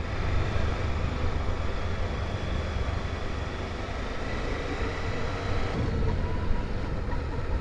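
Motorcycle running steadily on the road, engine and road noise heard from on board the bike.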